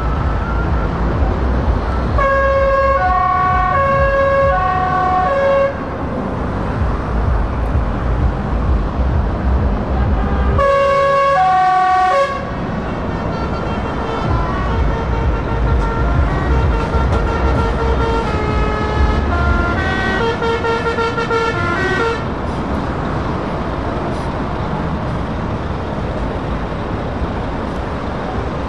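Heavy trucks pulling away with a low diesel engine rumble, over which multi-note musical air horns play. A short tune of alternating notes sounds a couple of seconds in, a loud horn chord comes about a third of the way through, and a longer run of changing notes follows.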